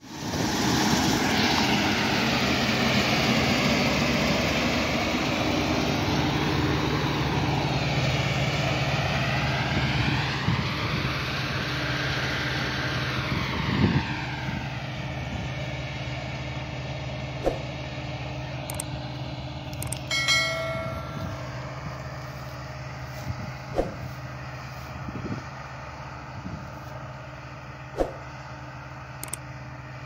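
Combine harvester running while cutting wheat: a steady engine hum with threshing noise, fading as the machine moves away. About two-thirds of the way in, a short bell-like chime rings out.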